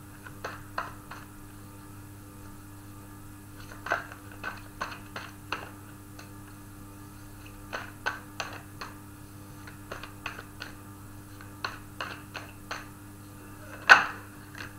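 A tarot deck being shuffled by hand: bursts of quick card clicks every few seconds, with one much louder snap near the end. A steady mains hum runs underneath.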